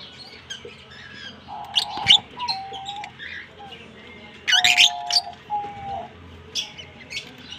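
Lovebirds chirping in sharp, shrill bursts, loudest about two seconds in and again around four and a half to five seconds in, with several lower, level notes between them.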